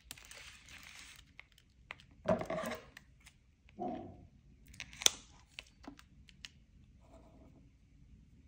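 Clear nano double-sided gel tape peeled off its roll with a sticky rasp, then cut with scissors. A sharp snip about five seconds in is the loudest sound.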